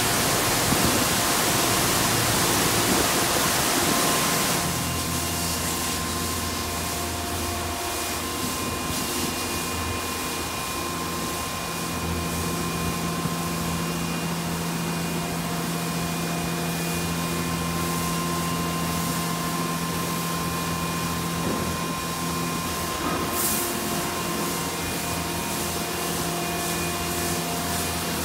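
D&S Quicksilver touchless car wash running in the bay: a loud hiss of spray for about the first four seconds, then a steady machine hum and whine with a fainter hiss.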